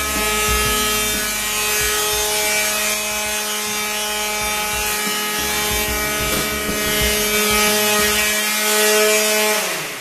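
Corded electric hand sander running steadily on a wooden door panel: a steady motor whine over the hiss of abrasive on wood, winding down in pitch as it is switched off near the end.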